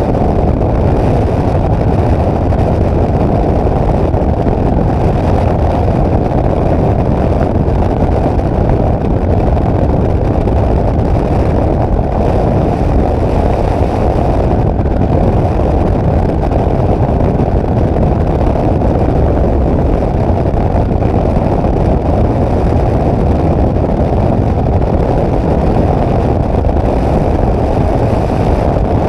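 Steady, muffled drone of a flex-wing microlight trike's engine and the rush of air through its open cockpit in flight. It holds at an even level throughout, with no change in engine speed.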